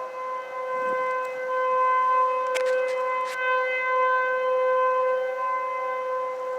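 Outdoor tornado warning sirens at full speed, holding a steady pitch, with a fainter second siren tone under the main one. The loudness swells and dips gently, and a couple of short clicks come near the middle.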